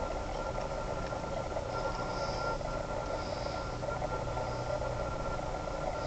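Steady background hum and hiss with a constant thin high whine running through it.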